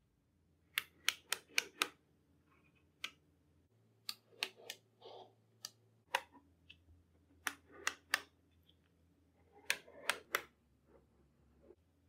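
Small magnetic balls clicking as they snap onto one another, in short runs of sharp clicks with pauses between.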